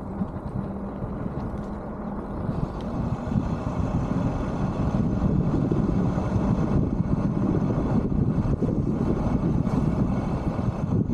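Wind buffeting the microphone of a camera on a moving bike, with a dull rumble of road noise. It grows louder about three seconds in.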